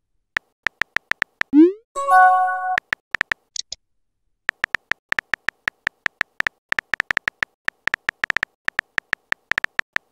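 Short synthetic key clicks of a texting app's on-screen keyboard as messages are typed, with a rising swoop and a short chime about two seconds in as messages are sent and received. After a brief pause the clicks resume, fast and steady.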